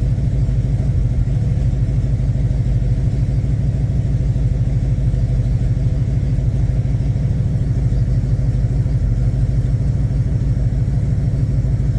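Jeep J10 engine idling steadily in gear at about 700 rpm, fully warmed up.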